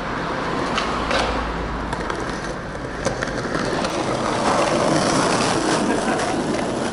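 Skateboard wheels rolling over pavement: a steady rolling noise with a few sharp clicks, about a second in and again around three seconds, as the wheels cross cracks or joints.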